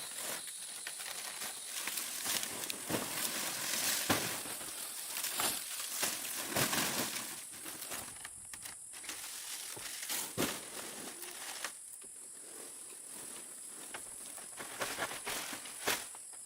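Insects buzzing steadily at a high pitch, with scattered knocks and rustling, louder in the first half.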